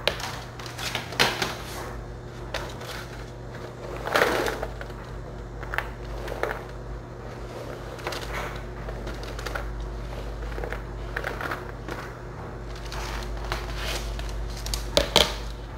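Diced carrots being pushed by hand and slid off a plastic cutting board onto a disposable aluminium pan: scattered light knocks and scrapes, with a steady low hum beneath.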